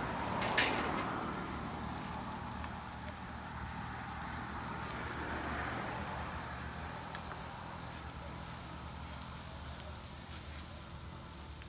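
Beef sizzling on a wire grill over a charcoal fire, with a sharp crackle about half a second in. A steady low hum of engines runs underneath.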